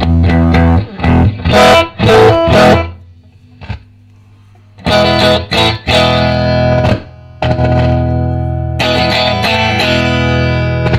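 Electric guitar played through a Fender Pro Junior III valve amp with its volume turned up high and the sound distorted. There are several short, choppy chords, then a pause of about two seconds, then two longer ringing chords.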